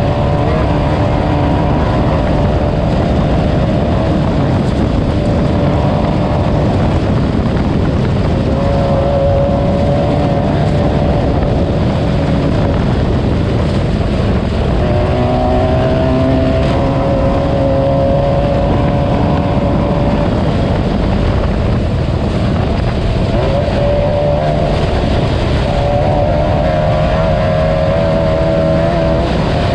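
Class 9 off-road race car's engine running hard under load, its pitch slowly climbing, then dropping back and climbing again several times as it revs and shifts, over a constant loud rough noise from the moving car.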